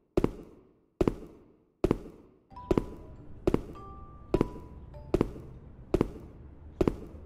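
Footsteps of flat shoes on a wooden floor: a sharp click with a short echo about every 0.8 seconds, nine steps in all. Quiet background music comes in about two and a half seconds in.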